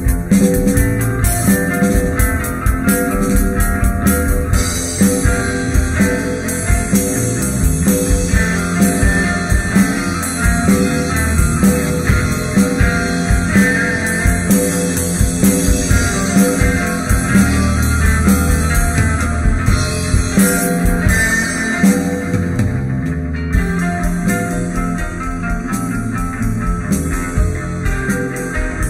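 Rock band recording: guitar, bass guitar and drum kit playing together.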